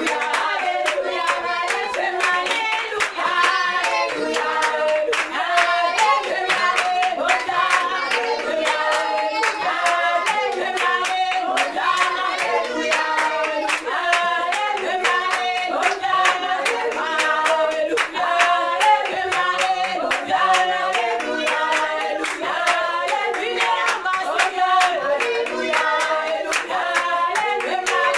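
A small congregation singing a worship song together with steady, rhythmic hand clapping.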